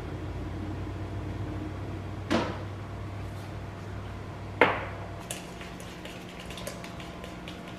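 Two sharp knocks about two seconds apart, the second the louder, then a utensil clinking quickly and lightly against a stainless steel mixing bowl as it is stirred. A steady low hum runs underneath.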